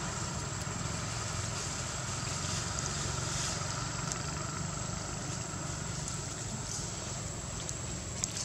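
A steady low rumble with a faint high hiss, engine-like in character, with a few faint clicks near the end.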